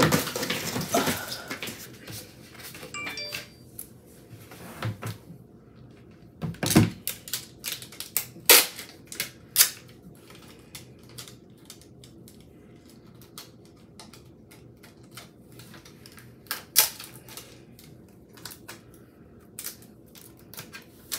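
Plastic lash cases and a clear plastic storage bin being handled and set down: scattered clicks and knocks, with a few louder knocks.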